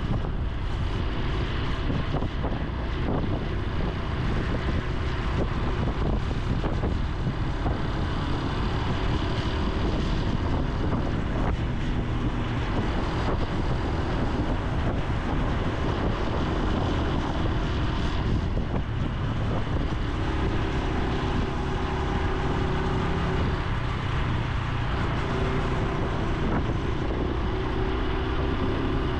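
Honda Super Cub C125's single-cylinder four-stroke engine and exhaust running while riding, its note shifting in pitch now and then with the throttle, with wind rushing over the microphone.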